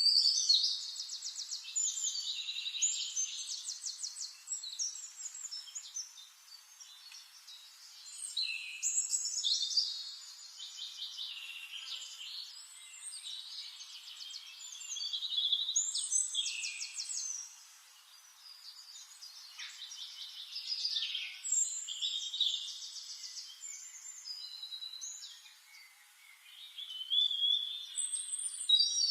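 Songbirds singing: rapid trilled and chirping phrases that come in bursts, about five times, with quieter twittering between them.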